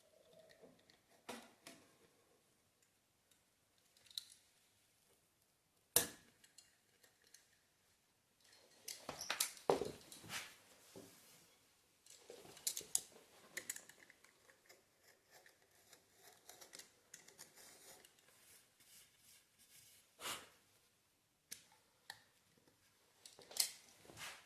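Scissors snipping off excess cloth from a re-covered snooker cushion rail: irregular snips and clicks, the sharpest about six seconds in and a busier run of cuts a few seconds later.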